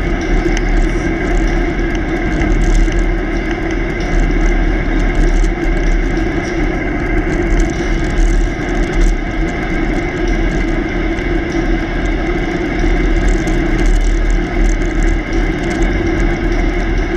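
Steady rush of wind buffeting a bike-mounted camera's microphone, over the hum and rumble of a bicycle's tyres rolling on coarse highway asphalt at speed.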